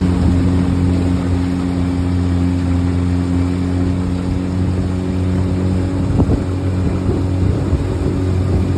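Skiff's outboard motor running steadily under way.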